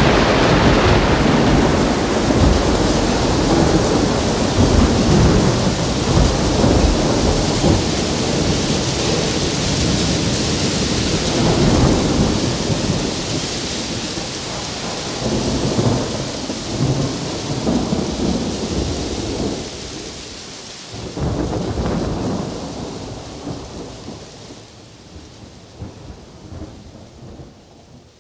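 Recorded thunderstorm: steady heavy rain with rolling thunder that swells several times, fading out slowly over the last several seconds.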